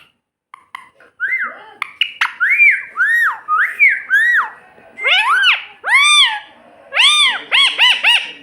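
Pet parrot calling: a run of about a dozen short, high calls, each rising and then falling in pitch. The calls come quicker toward the end.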